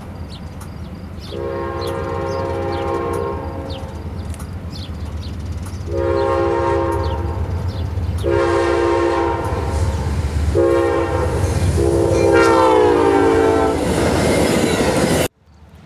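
Amtrak diesel passenger locomotive blowing its multi-chime air horn for a grade crossing: several long blasts, then a short one and a final long blast that drops in pitch as the engine passes close by. The diesel engine rumbles underneath throughout. At the end comes a loud rush of the passenger cars going by, which cuts off suddenly.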